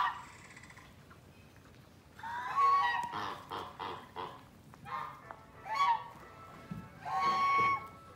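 Goats bleating: a run of wavering, pitched calls, several of them with a shaky, pulsing tremble, the loudest a few seconds in and another near the end.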